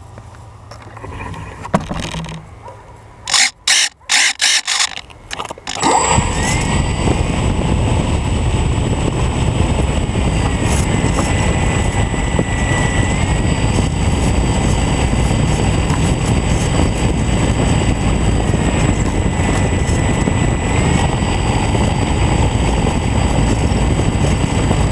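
RC Super Cub model plane's motor and propeller, heard from a camera on the plane: a few short bursts of power, then, about six seconds in, running steadily and loudly with a faint whine while the plane is on the ground.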